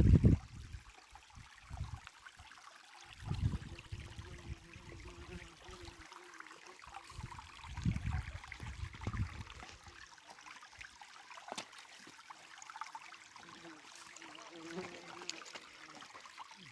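Mountain stream running and trickling. A few louder low rumbles come right at the start, about three and a half seconds in, and around eight to nine seconds in.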